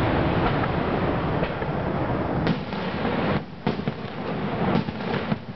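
Aerial fireworks display: a dense, continuous barrage of bangs and crackling bursts, with a short lull about three and a half seconds in before more bursts follow.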